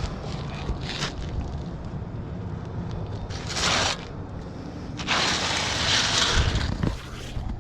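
Metal snake bar scraping and grinding under gritty asphalt roof shingles while working out a stuck nail: a few light clicks, then two rough scrapes, a short one about three seconds in and a longer, louder one about five seconds in.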